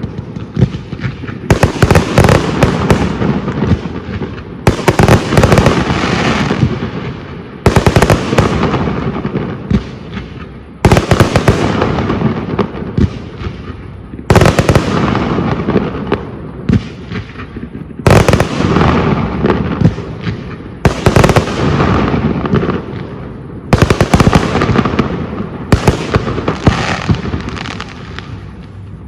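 Aerial fireworks shells bursting in a display: a fresh salvo of loud bangs about every three seconds, each followed by crackling and a rumbling echo that dies away before the next.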